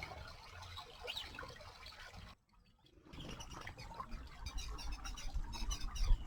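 Small birds bathing in a shallow stream: water splashing and trickling, with many short chirps that grow busier in the second half. The sound drops out briefly about two and a half seconds in.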